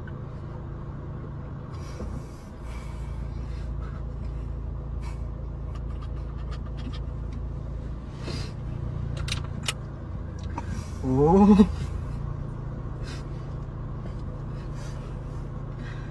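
Steady low rumble and hum of a car's cabin, with scattered faint clicks. About eleven seconds in, a brief pitched sound rises in pitch and stands out as the loudest thing.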